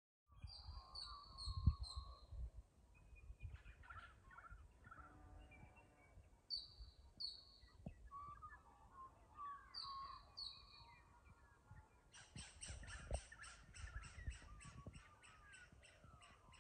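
Faint songs and calls of several wild birds. There are pairs of short falling whistles, some warbling phrases, and near the end a fast run of evenly repeated notes, about eight a second. A few dull low thumps come in among them.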